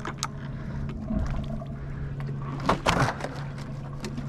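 A fishing cast from a boat: the balloon-float rig and bait hit the water with a rushing splash about three seconds in, over a steady low hum.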